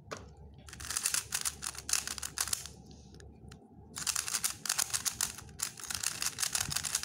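A 3x3 speed cube being turned rapidly by hand, its plastic layers clacking in fast runs of clicks: two bursts of turning with a short pause between, about three seconds in.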